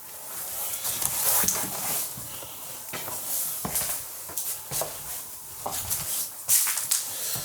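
Irregular rustling and crunching with many short crackles and a few sharper knocks, the loudest about 6.5 s in.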